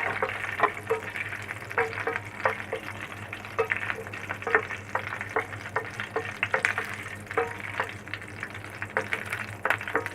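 Raisins and cashews frying in hot ghee in a pan, sizzling, while a spoon stirs them with frequent short scrapes and taps against the pan. A faint steady low hum runs underneath.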